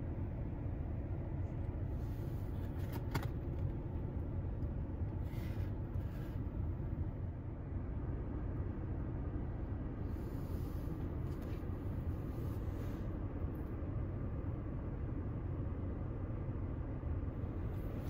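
Steady low rumble of a car's cabin, with faint brief rustles and taps now and then as a shoebox and shoes are handled.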